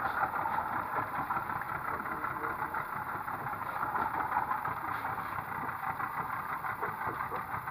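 Boat's outboard motor running steadily at low speed, pushing the panga through the water.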